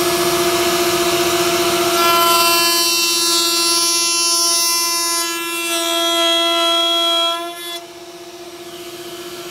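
Router running a dovetail bit in a router table, a steady whine, while a pine board is fed across the bit to cut half-blind dovetail sockets. The cutting noise builds from about two seconds in, and the sound drops sharply near the end.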